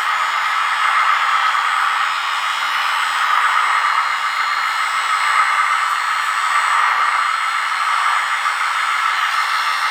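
Small electric hydraulic pump of a 1/14 scale RC hydraulic forklift running steadily, a hissing whine, as the forks lower a loaded pallet.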